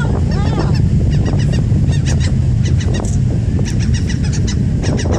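Gulls calling over and over in short, honking cries, over a steady deep rumble.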